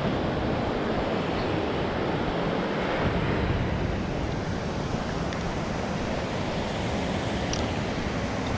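Ocean surf washing steadily on the beach, with wind on the microphone.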